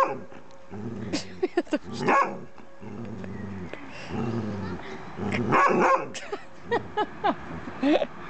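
Dog growling in long low rumbles, broken by a few sharp barks, then short high yelps in the last two seconds, over a bone.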